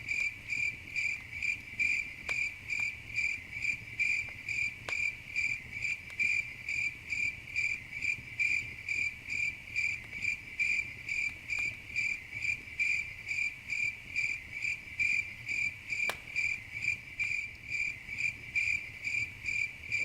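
A cricket chirping steadily, about two chirps a second, with a few sharp pops of a crackling campfire.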